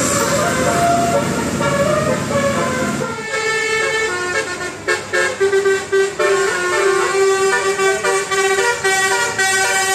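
Bus 'telolet' multi-tone horn playing a tune of stepping notes. Vehicle running noise underneath fades out about three seconds in, leaving the horn tune clear.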